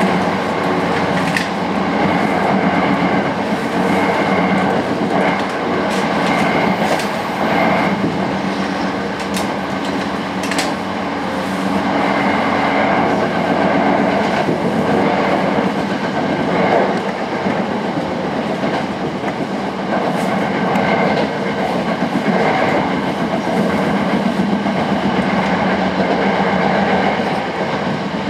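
Steady running noise heard inside a Sanyo Electric Railway 5000 series train car at speed: wheels rumbling on the rails, with occasional sharp clicks.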